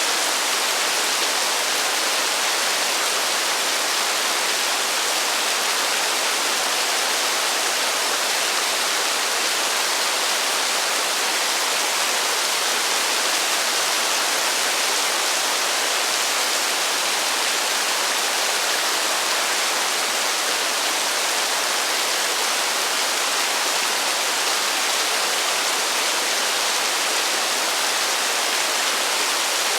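Heavy rain falling steadily: a dense, even hiss with no thunder and no separate drops standing out.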